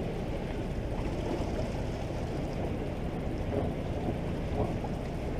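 A small fishing boat on the water: a steady low drone with water noise, and no distinct events standing out.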